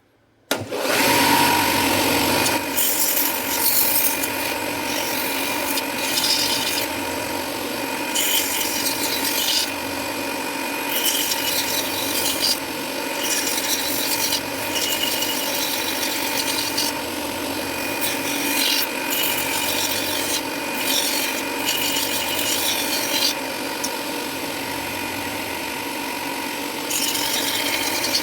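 Small electric rotary grinder switched on about half a second in and running steadily, its bit rasping material off a plastic airsoft pistol grip in repeated passes that swell and ease every second or two. This is the rough grinding that takes the grip down to its basic shape.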